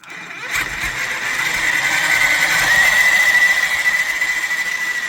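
Reely FreeMen RC crawler's electric motor and geared drivetrain running steadily with a loud high whine, which rises a little about halfway through and then holds. The squealing and grinding comes from the gearbox and axles, which were bone-dry and have just been greased; the owner finds it only a bit quieter.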